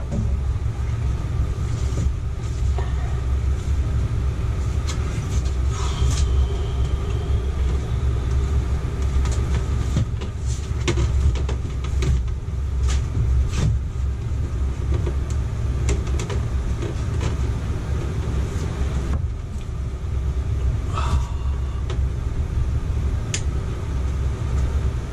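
A steady low rumble runs throughout, with scattered clicks and knocks as a plastic rooftop air-conditioner ceiling shroud is handled and pushed into place against the ceiling.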